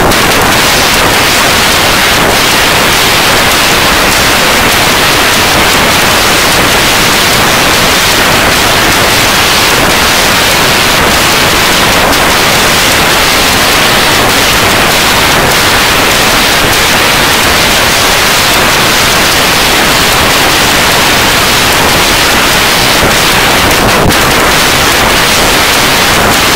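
Loud, unchanging static hiss, like white noise, with no pitch or rhythm in it.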